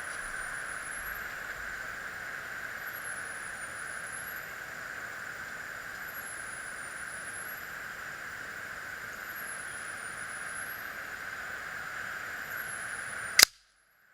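Steady background hiss, then near the end a single sharp crack from an Air Venturi AV-46M match air pistol firing a shot, after which the sound cuts out abruptly.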